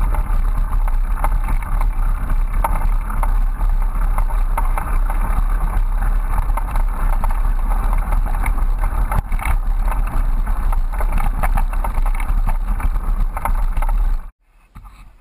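Bicycle rolling fast along a leaf-strewn dirt trail, heard through a handlebar-mounted camera: steady rumble and wind buffeting on the microphone, with frequent rattling clicks from the bike. It cuts off abruptly near the end.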